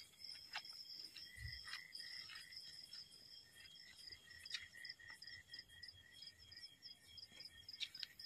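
Faint night-time chorus of crickets, steady pulsing chirps at several high pitches, with a few faint scattered clicks.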